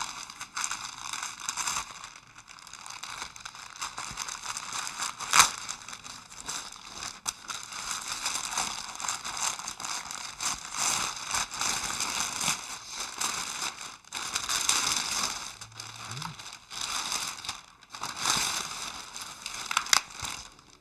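White wrapping paper rustling and crinkling as it is unfolded by hand from a framed painting, with a sharp crackle of paper about five seconds in and another near the end.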